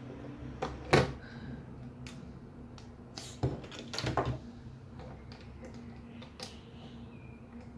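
Plastic Lego bricks being handled: several sharp clicks and knocks as the bricks are pulled apart, pressed together and set down on a wooden tabletop. The loudest knock comes about a second in.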